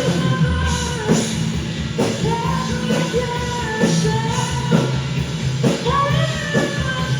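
A live rock band playing a song, with a melodic line repeating in short phrases over bass and drums.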